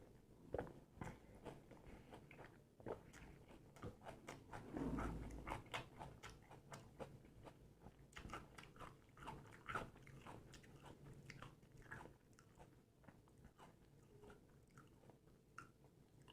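Pani puri being bitten and chewed close to the microphone: crisp puri shells crunching and wet chewing, a quick run of small crackles, loudest about five seconds in.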